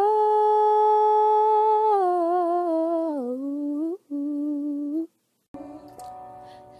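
A girl's voice singing unaccompanied, holding one long wordless note that wavers and slides down about three seconds in, then a second shorter held note. After a brief silence, only faint room noise.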